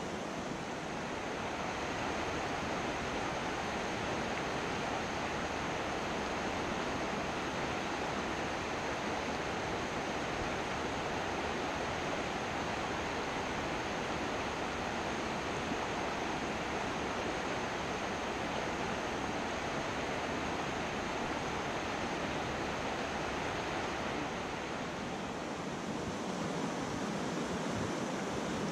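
Mountain trout stream rushing over rocks and riffles: a steady, even roar of moving water.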